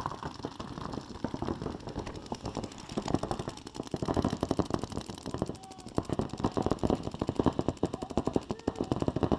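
Several paintball markers firing rapid, overlapping streams of sharp pops, a dense steady rattle of shots as the speedball game opens.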